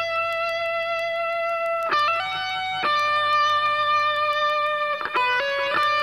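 Background music: a slow melody of long, held guitar notes, the note changing only every second or two.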